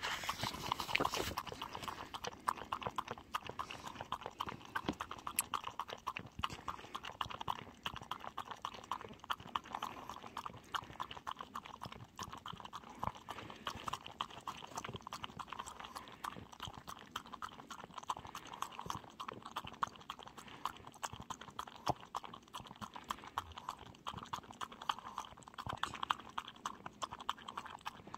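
A small dog eating from a plastic bowl, a steady run of quick, irregular chewing and licking clicks.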